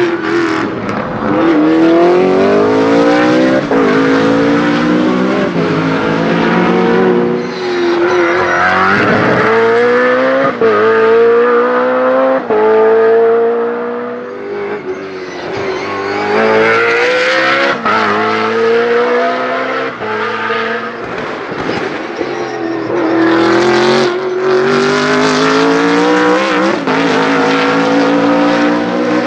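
BMW Z4 GT3 race car's V8 engine under hard acceleration, revving up over and over with a sharp drop in pitch at each gear change.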